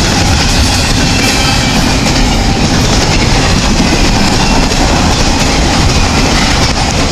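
Intermodal freight cars loaded with semi-trailers rolling past close by, with a loud, steady rumble and rattle of steel wheels on the rails.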